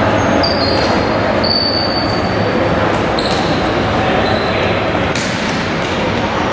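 Tchoukball match in a large sports hall: shoes squeaking briefly on the floor several times, a few thuds of the ball, and players' voices in the background.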